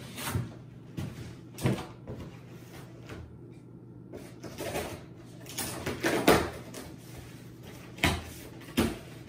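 A package being handled and opened: a run of knocks and bumps with some rustling, the loudest bump about six seconds in.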